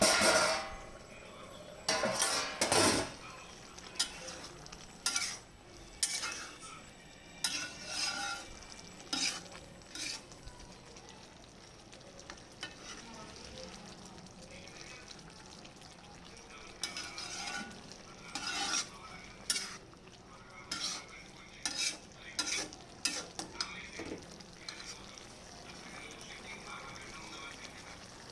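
A spatula stirring and scraping vegetables frying in a pan, with a low sizzle under repeated short scrapes that pause for a few seconds around the middle.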